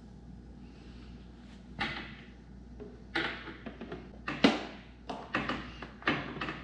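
White plastic side fairing of a Suzuki GSX-R 750 being fitted by hand, with a series of short, sharp plastic knocks and clacks as the panel is pushed and tapped into place against the bike. The loudest knock comes a little past the middle.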